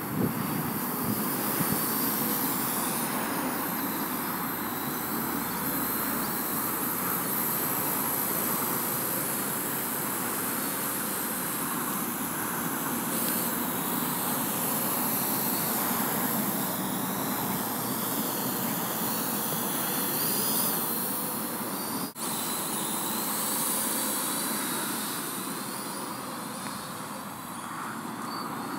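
Parrot AR.Drone 2.0 quadcopter's electric motors and propellers whirring steadily, the pitch wavering up and down as it manoeuvres. The sound cuts out for an instant about two-thirds of the way through.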